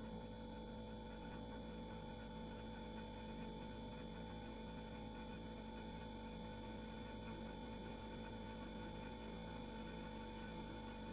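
Household refrigerator running, a faint steady hum with several constant tones over a light hiss.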